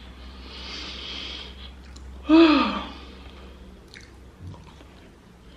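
A woman's long breathy exhale, then a short voiced "hmm" about two seconds in whose pitch rises and falls, followed by faint chewing of French fries.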